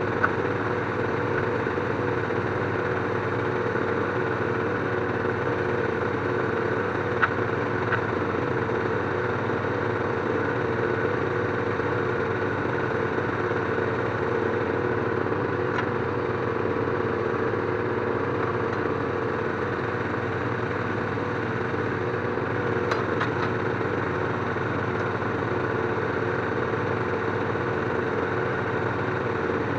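An engine idling steadily, with a few light clicks and knocks over it.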